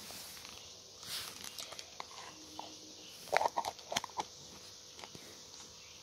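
A pet parakeet giving a quick run of short, sharp chirps and clicks about three and a half seconds in.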